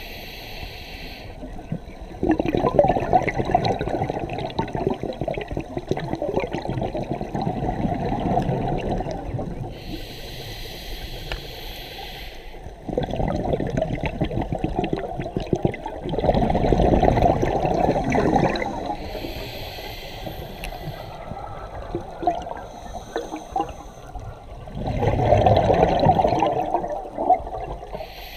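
Scuba diver's regulator breathing underwater: a short hiss of inhaled air through the regulator, then several seconds of bubbling as the breath is exhaled, the cycle repeating about every nine seconds.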